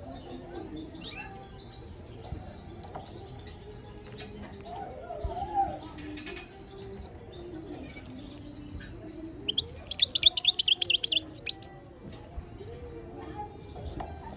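Male European goldfinch twittering softly, then breaking into a loud, rapid run of high chirping notes for about two seconds around the ten-second mark.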